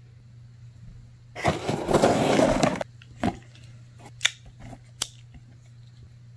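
Serrated folding knife slitting the packing tape on a cardboard box: about a second and a half of loud scraping tear, then a few sharp clicks.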